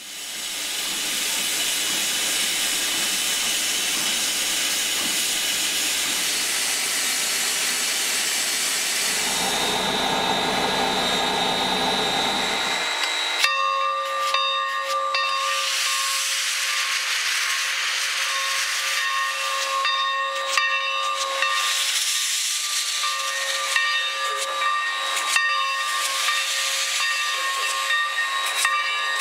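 Alberni Pacific 2-8-2 tank steam locomotive hissing steam, a dense steady hiss. About 13 seconds in it gives way to steam blowing from the open cylinder cocks, with faint steady whistling tones and scattered clicks.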